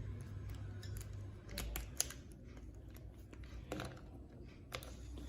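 Scattered light plastic clicks and taps as Rubik's Cube pieces are handled and a corner piece is pushed into place in the cube.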